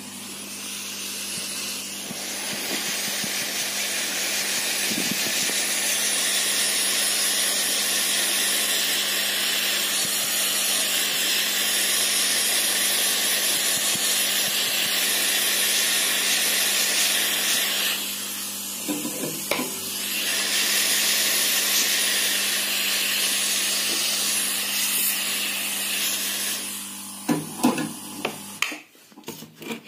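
Hot air gun blowing onto a phone's glass back panel to soften its adhesive: a steady hiss of rushing air over a low motor hum. It eases briefly about two-thirds of the way through and is switched off near the end, followed by a few clicks.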